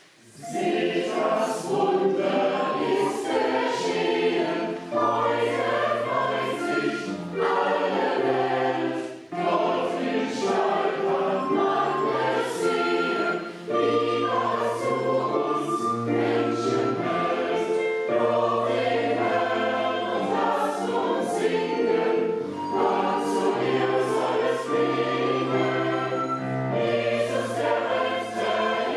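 Mixed church choir singing in several parts, starting right after a brief pause.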